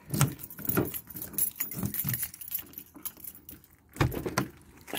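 A ring of keys with a Jeep key and remote fob jangling in the hand, with a run of sharp clicks and knocks; the loudest knock comes about four seconds in.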